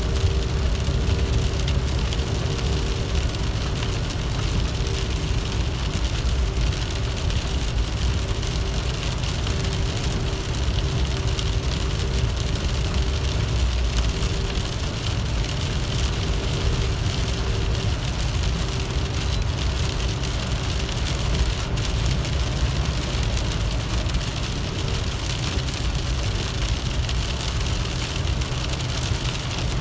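Steady road rumble inside a moving car's cabin on a wet highway, with rain hitting the windscreen and tyres hissing on the wet road. A faint steady hum comes and goes.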